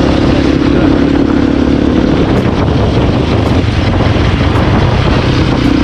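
A motorcycle being ridden on the road: a steady engine hum under heavy wind rush on the microphone.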